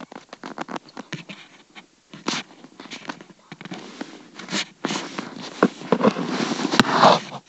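Rustling, crackling and knocking from handling close to the microphone: fabric and pillow rubbing and bumping as someone shifts about. It gets denser and louder in the last few seconds, with one sharp knock near the end.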